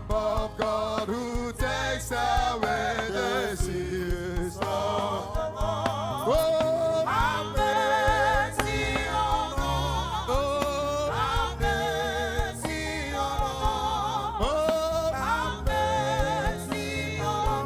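Gospel worship singing over instrumental accompaniment with a continuous bass. The voices hold notes with a wide vibrato and slide up into several of them.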